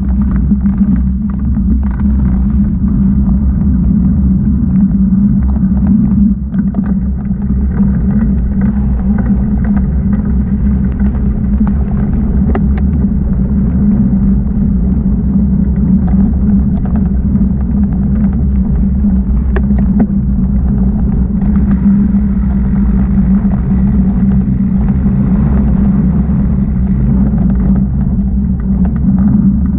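Mountain bike rolling along a dirt singletrack trail, heard as a loud, steady low rumble on the ride-mounted camera's microphone, with a few sharp clicks and rattles now and then.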